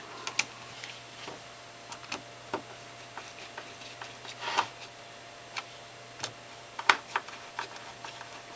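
A small Phillips screwdriver driving screws into the plastic cable cover of a pair of GHD hair straighteners: irregular light clicks and ticks, with a short cluster of them about halfway through.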